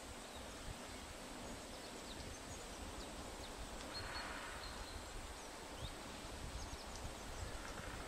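Spring woodland ambience: a steady hush of leaves rustling in the breeze, with faint, scattered bird chirps and a brief rustle about halfway through.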